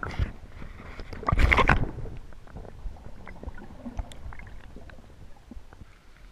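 Water sloshing and splashing in the shallow surf as a released blacktip shark kicks away, with one loud splash about a second and a half in, then a few faint clicks.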